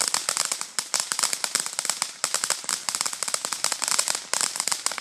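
A string of firecrackers going off in a fast, irregular volley of sharp pops that keeps going without a break.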